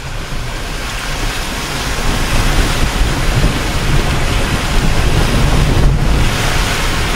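Loud rush of water surging and splashing against a Dacia Duster SUV as it drives through a deep water crossing, with a low engine rumble underneath. The splashing builds over the first few seconds and stays heavy.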